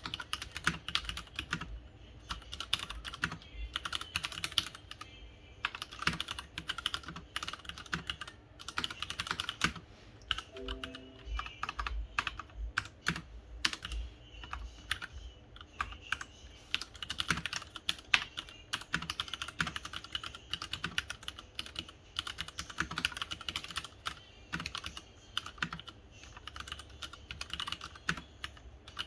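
Steady typing on a Leopold FC900R mechanical keyboard with Cherry MX Red linear switches: a quick, irregular run of key clacks with only brief pauses.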